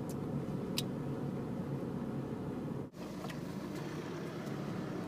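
Car interior road noise while driving: a steady low rumble of engine and tyres, which briefly cuts out just before three seconds in.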